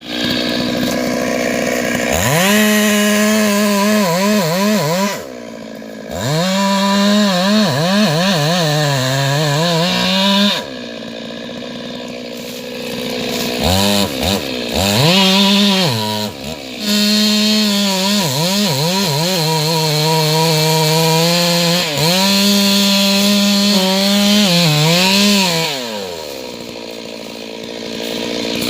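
Stihl 382 chainsaw running at full throttle as it cuts through wood, the engine pitch rising and sagging under load, dropping back to idle three times between cuts before revving up again.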